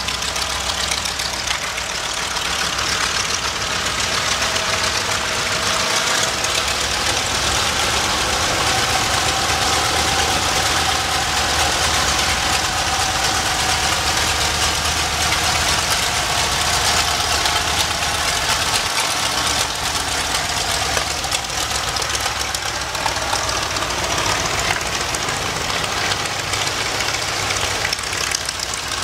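Nakajima Sakae 14-cylinder twin-row radial engine of a Mitsubishi A6M5 Zero fighter running steadily at low power while the aircraft taxis. Its pitch rises a little through the middle and eases back again.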